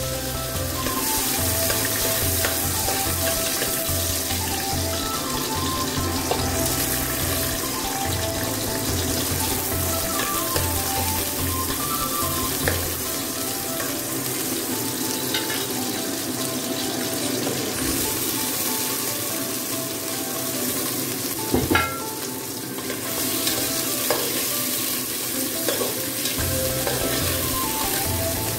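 Aromatics sizzling in hot oil in an aluminium stock pot and being stirred with a metal spoon, with a sharp knock of the spoon against the pot a little past the middle.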